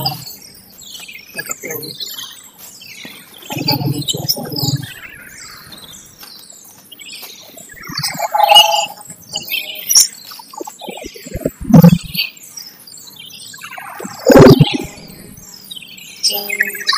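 Small birds chirping continuously in rapid, repeated high falling notes. Over them come loud rustling and scraping bursts about 8, 12 and 14 seconds in, as compost is handled in a burlap sack and plastic bucket.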